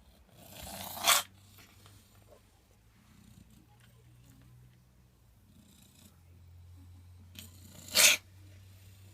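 A cat coughing twice, about seven seconds apart: each cough is a short, rising wheezy build-up that ends in one sharp, loud hack. A low, steady purr-like rumble runs between the coughs.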